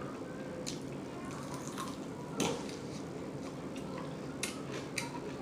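Close-up chewing and lip-smacking while eating chicken wings: scattered short wet smacks and clicks, the loudest about two and a half seconds in.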